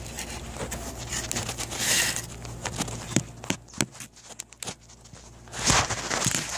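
Handling noise: scattered knocks, taps and scraping as a wooden board is shifted about on a hard work surface and the camera is moved, with two brief rustling scrapes, the louder one near the end.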